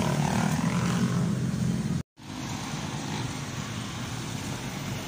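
Street traffic noise with a motor vehicle's engine running close by. It breaks off suddenly about two seconds in and gives way to quieter, steady street noise.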